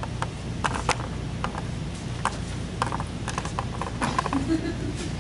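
Scattered light taps and scuffs of people moving on a hard floor, thickening into a cluster of taps about four seconds in, over a steady low room hum.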